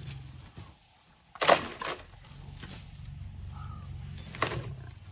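Male lion growling: a low rumbling growl with two sudden loud snarls, about one and a half seconds in and again near the end.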